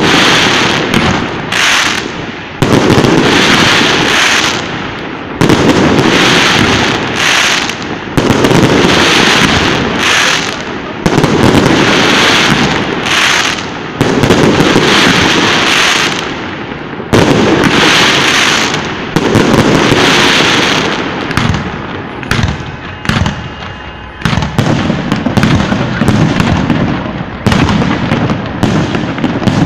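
Aerial fireworks shells bursting close overhead: a steady run of loud bangs every one to three seconds, each trailing off into crackling. The last few seconds bring a faster patter of sharp pops.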